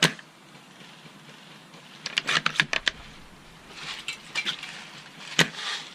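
Two sharp shots from a spring airsoft sniper rifle, one at the start and one about five and a half seconds in, with a quick run of clicks and rattles between them and some rustling.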